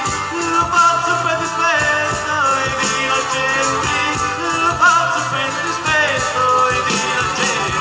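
A live band playing taranta, southern Italian folk dance music, through a PA: accordion and guitars over a steady beat.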